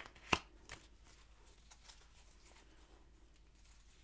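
Quiet small-room tone with a sharp tap of a tarot deck about a third of a second in and a few faint ticks around it.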